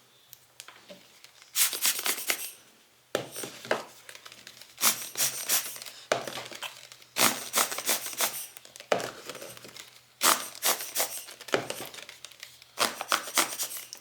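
Hand air blower squeezed again and again to puff dust off lens glass: about seven short hissing puffs, roughly one every two seconds.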